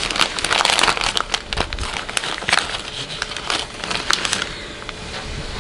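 Thin clear plastic packets of fishing bite indicators crinkling and crackling as they are handled and an indicator is drawn out of one. The crackling dies down about four seconds in.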